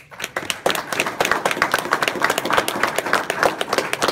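Audience applauding, breaking out suddenly, with dense overlapping claps and several sharp claps close by.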